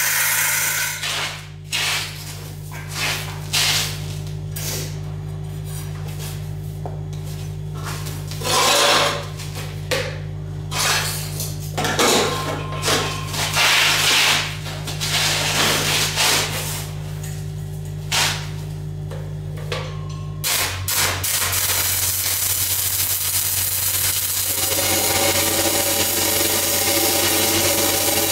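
Stick-welding arc from a cellulose 6010/8010 electrode on steel pipe, struck about 20 seconds in and then crackling steadily. Before it there are scattered knocks and scrapes over a steady low hum, and the hum shifts when the arc strikes.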